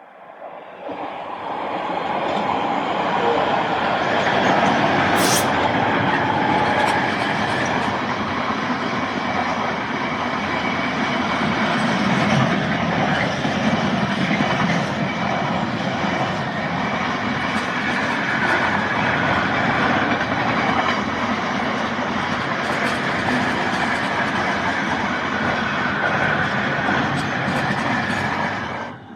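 A train passing close by on the line: a loud, steady rumble of wheels running on the rails that builds over the first two seconds, holds for about 25 seconds and cuts off abruptly near the end.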